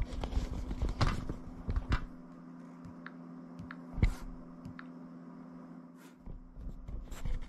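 Scattered light clicks and taps from hands handling things at a desk, the loudest about four seconds in, over a steady low hum.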